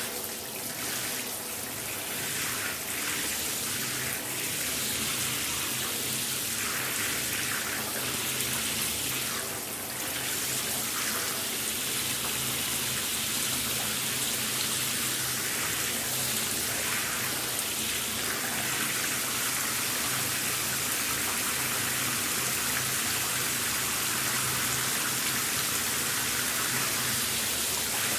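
A running shower: a steady spray of water hissing onto a tub or tiled floor, with small shifts in the splashing now and then.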